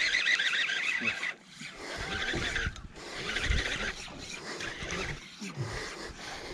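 Fishing reel drag buzzing as a hooked fish pulls line. It cuts off after about a second, then runs again more faintly for under a second. Low knocks and handling rumble follow.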